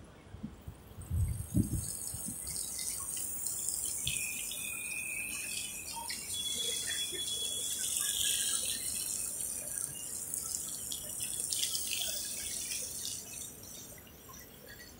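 Hiss of tyres on rain-wet paving as electric scooters pass close, swelling to its loudest around the middle and fading toward the end, with two brief high tones partway through.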